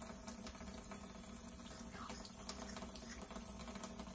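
Faint, irregular small clicks and wet ticks of hands picking through raw pork chitterlings, over a steady low hum.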